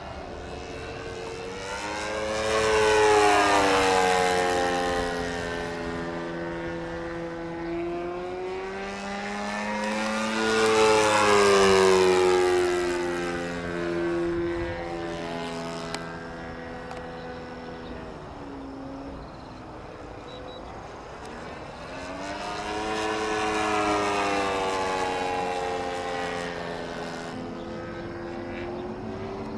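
Radio-controlled model propeller airplane making three passes overhead, its motor note growing louder as it approaches and sliding down in pitch as it goes by.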